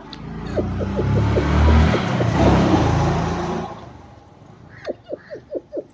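A motor vehicle passing close by, its noise swelling and then fading over about three and a half seconds. Near the end come five short, high squeaks in quick succession.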